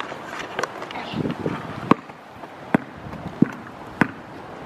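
A basketball being dribbled on an asphalt street: four sharp bounces, each about two-thirds of a second apart, in the second half.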